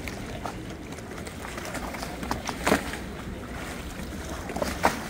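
Steady low outdoor rumble with a few short sharp knocks or clicks. The two loudest come just past the middle and near the end.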